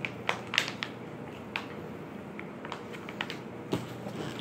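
Plastic turkey jerky pouch crinkling in the hands: a quick cluster of crackles near the start, then scattered single crinkles.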